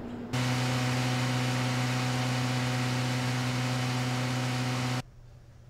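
Diesel standby generator running steadily under full load: a steady low hum with an even hiss over it. It starts abruptly just after the start and cuts off suddenly near the end.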